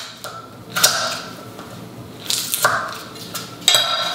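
Kitchen knife cutting butter into small pieces on a wooden cutting board, the blade knocking on the board a few times.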